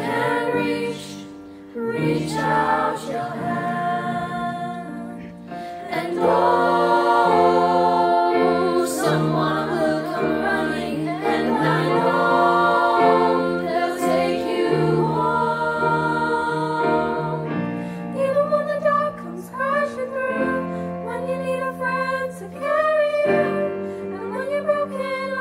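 Music: a choir singing a song over steady sustained low notes.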